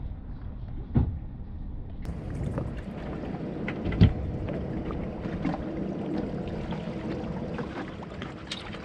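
Small boat's engine rumbling low with wind noise on the microphone, broken by a sharp knock about one second in and a louder knock about four seconds in.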